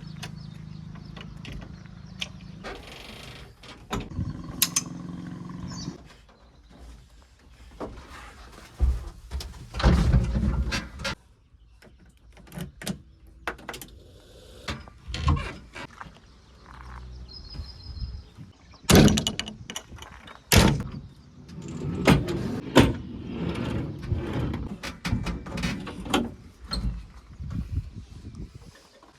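JCB 3DX backhoe loader at work: its diesel engine runs steadily at first, then repeated loud knocks, clanks and thuds follow as the bucket works the mud and loads the truck.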